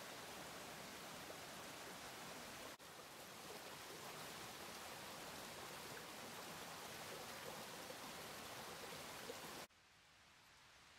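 Small rocky forest creek flowing: a steady rush of water over stones. It breaks off for a moment about three seconds in, then drops to a much fainter hush near the end.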